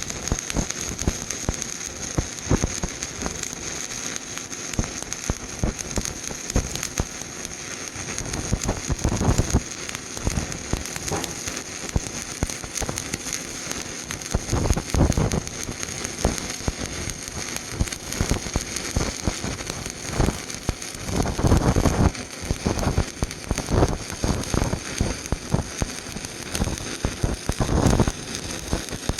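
Stick (SMAW) welding arc on rusted steel pipe, 3/32-inch rod at 75 amps, crackling and hissing steadily, with louder surges every several seconds.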